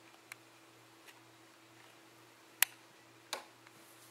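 A few short, sharp clicks, the loudest about two and a half seconds in and another soon after, over a faint steady low hum.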